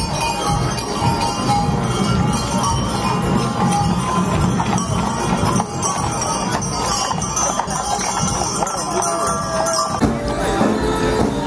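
Draught horses' harness jingling and hooves clopping on the pavement as decorated brewery wagons pass, over the hubbub of a parade crowd, with band music mixed in.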